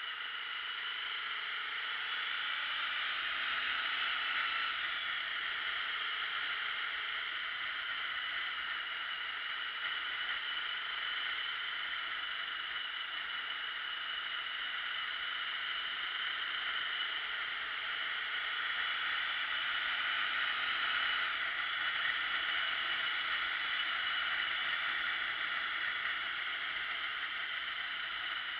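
Steady rush of wind over a motorcycle-mounted camera's microphone at road speed, with no clear engine note coming through. It swells a little about four seconds in and again around twenty seconds in.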